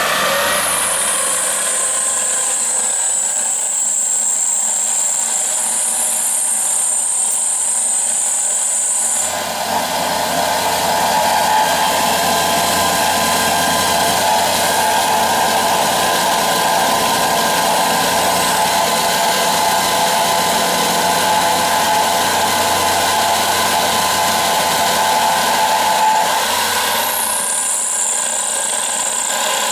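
Milling machine running a 5 mm end mill through brass, with a high whine for the first nine seconds and again near the end. In between it changes to a lower, rougher sound.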